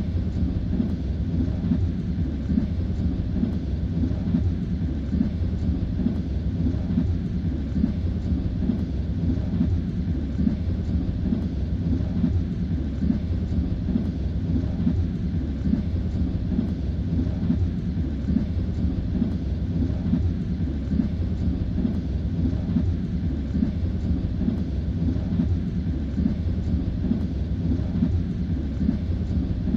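Steady low rumble of a moving train's wheels running on the rails, heard from inside the carriage.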